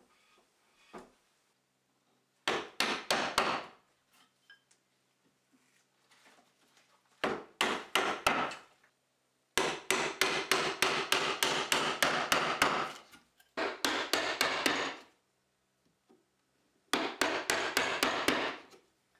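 Mallet blows on a mortise chisel chopping a mortise in tulip poplar: five runs of quick, sharp knocks, up to about six a second, with short pauses between the runs. Two light single knocks come first.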